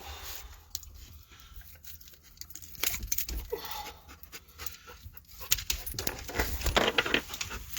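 A dog panting in quick, irregular breaths, louder in the second half.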